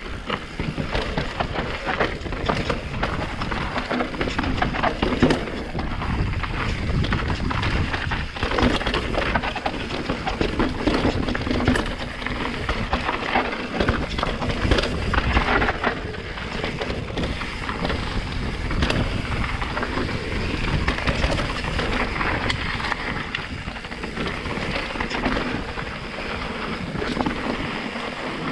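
Santa Cruz Megatower mountain bike descending a rough trail at speed: tyres crunching over rocks and dirt, with constant chain and frame rattle and many short knocks. Wind buffets the helmet or chest camera's microphone throughout.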